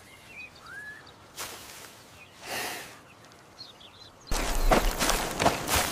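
Quiet open-air ambience with a faint bird chirp and two soft whooshes. From about four seconds in come loud, irregular footsteps crunching through dry grass.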